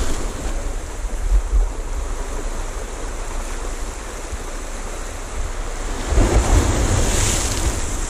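Sea surf breaking and washing over the boulders of a rocky shoreline, with wind buffeting the microphone. The surge swells louder about six seconds in.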